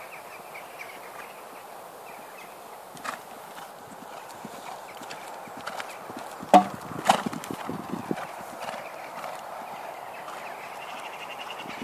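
A horse's hooves on a sand arena as it is ridden around a show-jumping course, with two loud thuds a little past halfway as the horse takes a jump.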